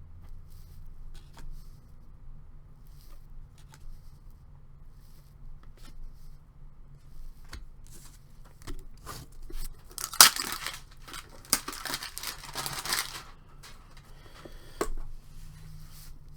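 Light clicks and handling of cards and packaging, then about ten seconds in a loud crinkly tearing lasting about three seconds as a trading-card pack wrapper is ripped open.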